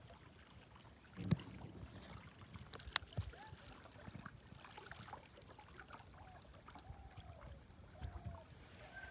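Quiet water sounds from a canoe on the river, with two sharp knocks, about a second and three seconds in. Faint short calls that rise and fall in pitch come in the second half.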